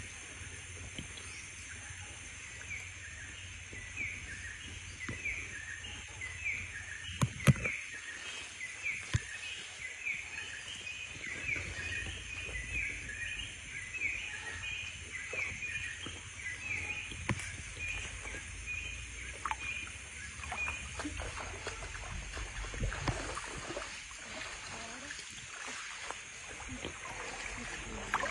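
Outdoor ambience at a shallow stream: water sloshing and trickling around wading feet over a steady rumble, while a small animal chirps in a long run of quick repeated calls that stops about two-thirds of the way through. A single sharp knock sounds about seven seconds in.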